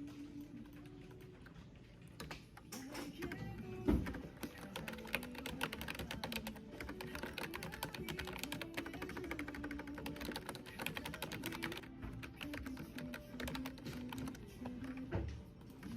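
Typing on a computer keyboard: a quick, dense patter of key clicks that starts about two and a half seconds in and goes on almost to the end, over background music. There are two heavier knocks, one about four seconds in and one near the end.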